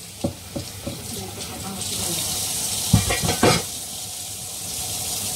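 Kitchen tap turned on about two seconds in and running steadily into the sink, after a few light clinks of dishes. Two louder knocks come a half-second apart about three seconds in.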